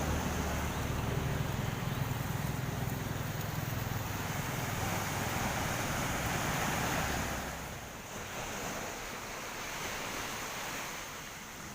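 A passing vehicle's low engine rumble that fades away about two-thirds of the way through, over a steady rushing outdoor noise.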